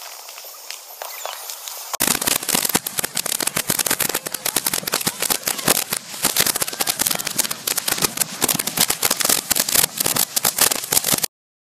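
Ground fountain firework spraying sparks with a hiss. About two seconds in, a louder fountain starts crackling densely with rapid sharp pops that continue almost to the end.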